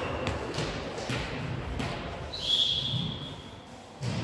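Sounds of an indoor volleyball rally: scattered dull thuds of ball contacts and footsteps on the hall floor, a short high squeak a little past halfway, and a louder hit near the end.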